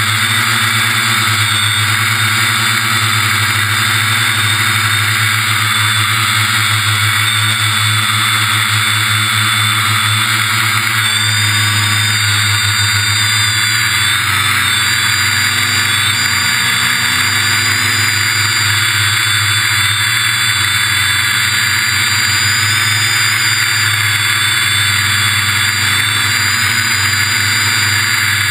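Quadcopter's electric motors and propellers whining steadily in flight, heard from a camera mounted on the drone itself. The pitch wavers slightly about halfway through as the throttle changes.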